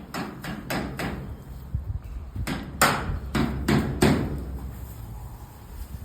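Hammer strikes driving end caps into the steel tubes of a carport frame: four quick blows, a pause of about a second and a half, then five more, each a sharp knock with a short ring.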